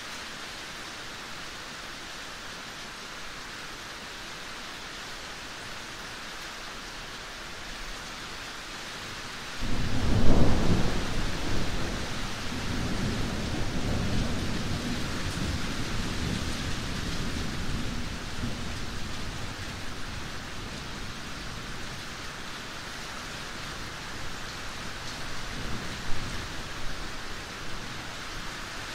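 Steady rain with thunder: about a third of the way in a loud thunderclap breaks in and rolls off slowly over many seconds, and a smaller rumble comes near the end.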